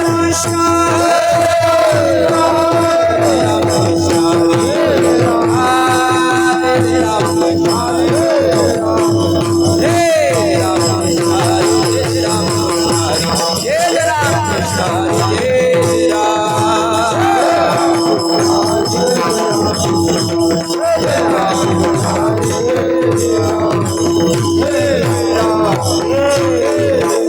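Kirtan devotional music: a steady drone note held throughout, rapid jingling of hand cymbals and mridang drumming, with melodic lines that bend and waver in pitch over the top.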